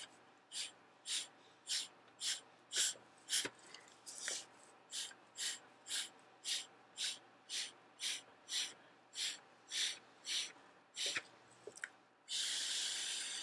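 Short puffs of breath blown through a drinking straw cut in half, about two a second, driving wet black watercolor across the paper; near the end one longer steady blow.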